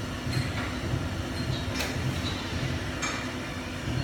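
Steady low machine hum, with a few faint light clicks over it.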